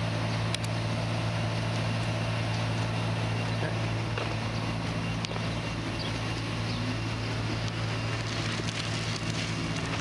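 Car engine running steadily with road noise: a constant low drone that does not change.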